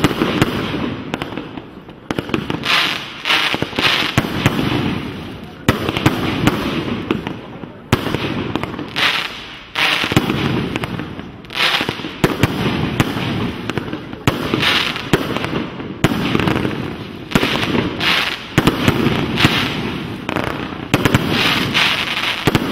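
Rubro Spider King firework cake firing shot after shot. Each sharp launch is followed by a spell of bursting effects that fades before the next, about one shot every one to two seconds.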